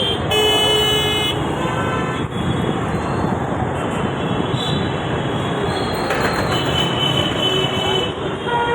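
Train running with a steady, loud rumble; a horn sounds for about a second near the start and more faintly again near the end.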